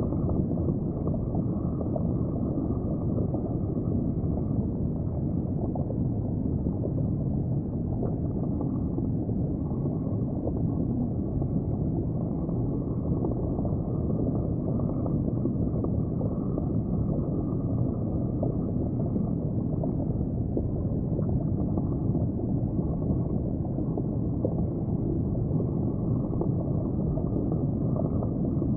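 Steady, muffled low rumble and water noise heard underwater in an aquarium tank, with no clear sharp sounds.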